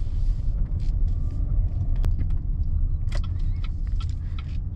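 Steady low rumble of road and engine noise inside the cabin of a 2019 GMC Acadia Denali being driven, with one sharp click about two seconds in and a few lighter ticks later.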